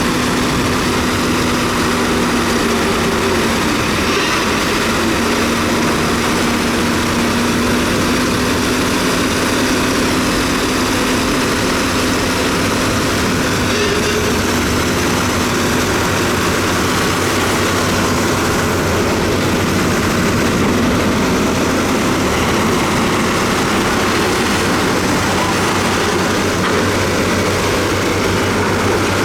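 Diesel engine of heavy earthmoving equipment running steadily, a constant low hum whose pitch shifts slightly about halfway through.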